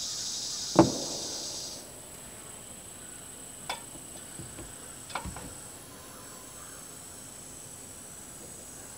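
A high, steady insect buzz that cuts off about two seconds in. A sharp click comes about a second in, then a few light taps as a rubber seal ring and marker are handled against a plastic water tank.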